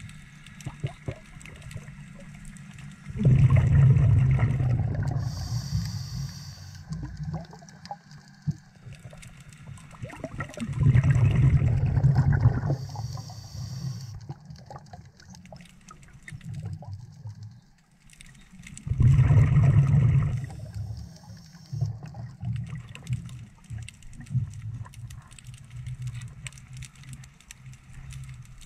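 A scuba diver's regulator breathing cycle, heard underwater. Exhaled air bubbles out three times, each about two seconds long and roughly eight seconds apart. After the first two a thinner, higher hiss of inhalation comes through the demand valve.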